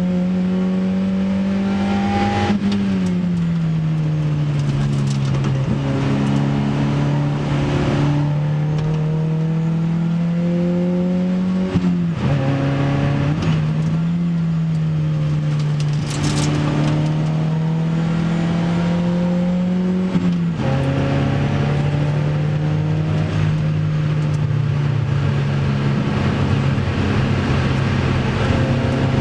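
Opel Speedster's 2.2-litre four-cylinder engine running hard under acceleration, heard from inside the cabin. The engine note climbs slowly and then drops suddenly three times, about every nine seconds.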